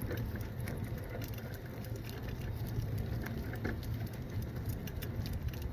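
Rapid, irregular light ticking and patter from a running Alaskan malamute puppy's paws and harness, over a steady low hum.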